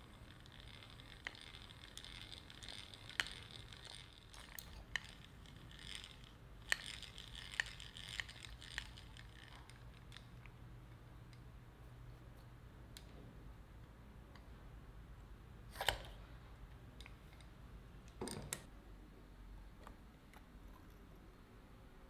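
Hand-cranked eggbeater drill boring a small hole in a brass plate held in a metal vise: a faint, soft grinding hiss with scattered light clicks for about the first ten seconds. Later come two louder knocks a couple of seconds apart.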